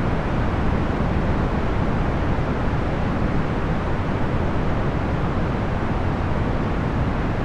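Steady, even whooshing noise of a box fan, procedurally generated rather than recorded. It sits low and dull, with no hum, rattle or change in level.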